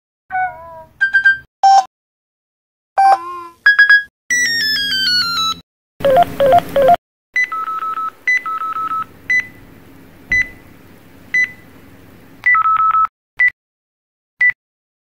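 A run of mobile phone low-battery and battery-empty alert tones played one after another. First a short Nokia Series 30+ melody of a few quick notes, then other synthetic chimes including a set of falling glides and a buzzy warble. Then a run of repeated electronic beeps with longer held tones from older Samsung CDMA phones, ending with single short beeps about a second apart as a Sprint Samsung's battery-empty warning.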